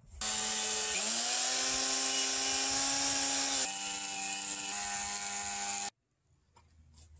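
Electric circular saw running and cutting along a timber board. Its motor pitch dips about a second in as the blade takes the load, then holds steady, and the sound stops abruptly near the end.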